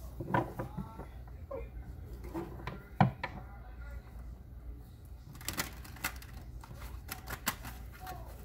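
A deck of tarot cards shuffled by hand, the cards rattling in quick clicks that grow dense and fast about five seconds in. One sharp knock about three seconds in, the loudest sound.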